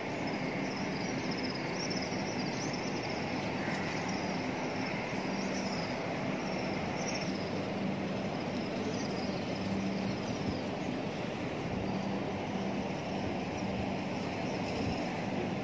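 Steady outdoor background noise with a low hum, and faint short high chirps now and then.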